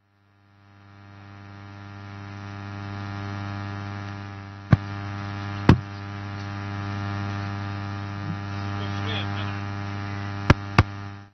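Electrical mains hum in the audio feed, a steady buzz that fades in and then cuts off suddenly. Sharp clicks break through it about five seconds in, again a second later, and twice more in quick succession near the end.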